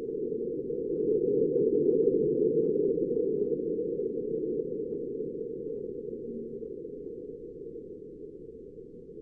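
Marsquake seismometer recording sped up into audible sound: a low, muffled rumble that swells to its loudest about two seconds in and then slowly dies away, with faint crackles on top.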